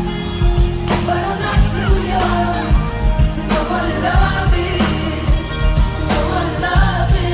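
Live R&B/hip-hop music played loud over a venue PA: a steady beat with heavy bass and singing over it, heard from among the crowd.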